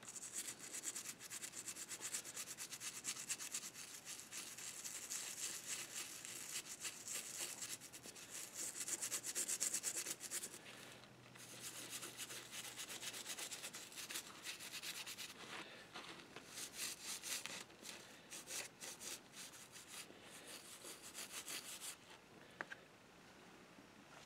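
Toothbrush scrubbing cleanser paste over a brass model locomotive tender truck to remove tarnish, in quick back-and-forth scratchy strokes. The scrubbing pauses briefly about eleven seconds in and stops about two seconds before the end.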